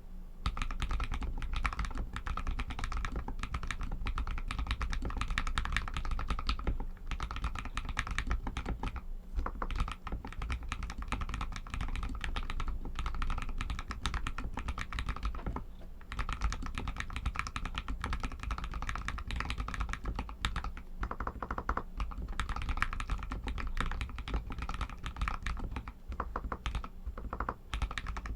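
Continuous fast typing on an RK61 mechanical keyboard with Outemu Red linear switches: rapid key clacks and bottoming-out, pausing briefly now and then.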